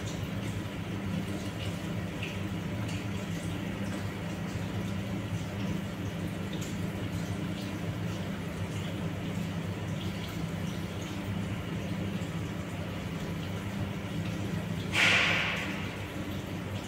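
Water being heated in a large glass round-bottom flask on a heating mantle: faint simmering ticks and hiss over a steady low hum. About fifteen seconds in comes a sudden louder rush of noise that fades within a second.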